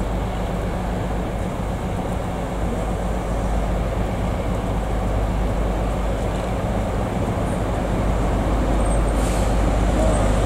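Class 43 HST power car's diesel engine running steadily as the train draws into the station, over the rumble of the train on the rails. The sound grows slowly louder towards the end as the power car comes closer.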